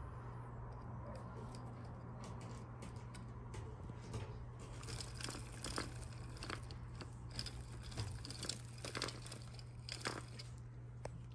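British Longhair kittens making irregular crunching and crinkling clicks, sparse at first and coming thick and fast from about halfway through. A steady low hum runs underneath.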